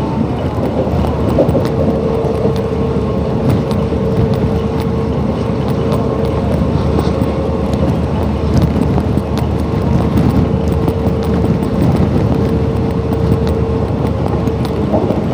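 Diesel-hauled passenger train running on the move: a dense, steady rumble of wheels on rails and rushing air. A steady tone comes in twice for a few seconds each.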